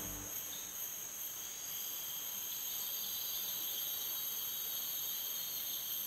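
Steady, high-pitched insect chorus, crickets or cicadas, holding several unchanging tones over a background hiss.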